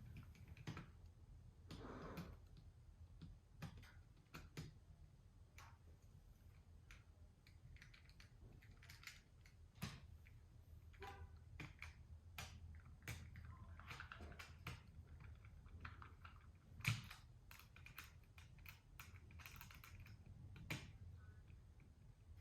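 Faint, irregular clicks and taps of small plastic toy train parts being handled and taken apart by hand with a screwdriver, with one louder tap late on.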